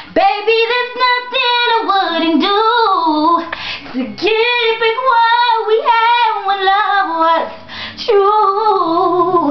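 A woman singing solo in an R&B style, the pitch sliding and bending between held notes, with short breaths between phrases.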